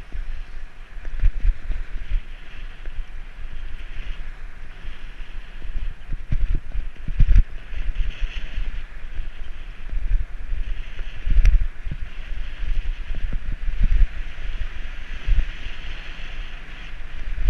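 Wind rumbling over a bike-mounted camera's microphone while cycling, with steady tyre and road noise and irregular louder thumps from bumps in the road. There is one sharp click about eleven seconds in.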